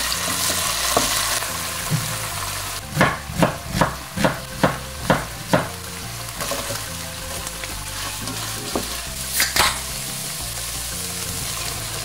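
Minced garlic sizzling in hot oil in a nonstick wok, stirred with a wooden spatula; diced onion is frying with it by the end. A run of about eight quick knocks comes a few seconds in, and two more later.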